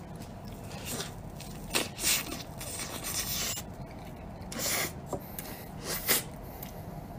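Close-up eating sounds: a series of short smacks and rubbing noises from chewing and licking maple syrup off the fingers.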